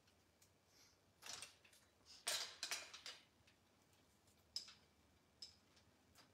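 Faint, scattered rustles and small clicks of a person changing into a dress. There is a short rustle about a second in, a cluster of louder rustles a second later, then two sharp clicks in the second half.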